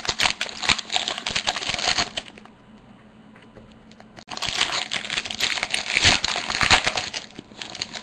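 Hockey card pack wrapper being torn open and crinkled by hand, in two bursts of crackling with a short pause between.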